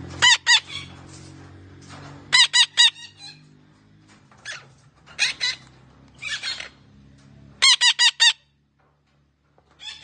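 A parrot giving loud, harsh calls in quick runs of two to four, with short pauses between the runs, over faint background music that drops out near the end.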